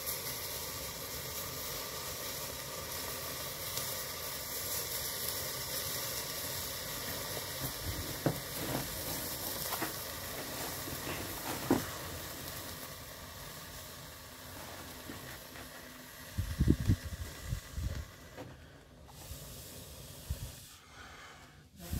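Hookah charcoal heating on a wire-mesh screen: a steady hiss with a few sharp crackles as the coal catches and glows. A run of low thumps about sixteen seconds in is the loudest thing.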